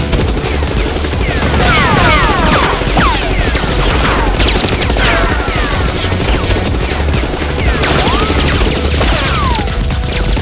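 Sustained rapid gunfire sound effects standing in for Nerf blasters being fired, with many quick falling whistling sweeps like ricochets or passing rounds.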